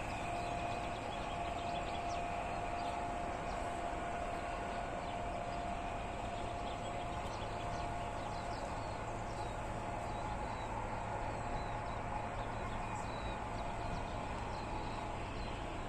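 Outdoor background: a steady low rumble with a held tone that fades out about halfway through, and small birds chirping faintly throughout.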